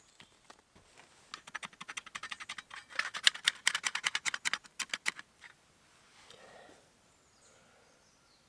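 A knife scraping a resin-soaked fatwood stick in a quick run of short, sharp strokes to raise fine shavings and dust for tinder. The strokes build up, are strongest in the middle and stop about five seconds in.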